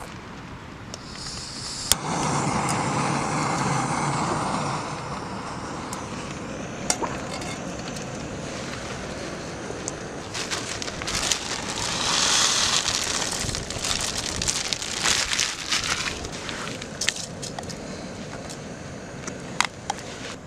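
A backpacking canister stove burning under an aluminium pot of water, its steady burner noise loudest just after a sharp click about two seconds in. Midway comes a hissing, rustling spell as rice and mixed vegetables go into the pot, with a few clicks and knocks.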